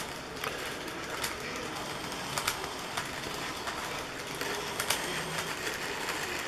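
N-gauge model bogie tank wagons rolling along layout track: a steady rolling hiss with a few irregular sharp clicks as the wheels pass over rail joints and points.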